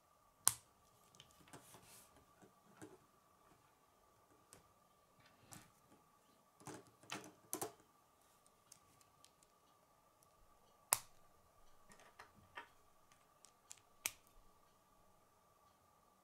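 K'nex plastic rods and connectors clicking and snapping together as they are pressed into place by hand: scattered sharp clicks, with a quick run of several clicks midway, over a faint steady high hum.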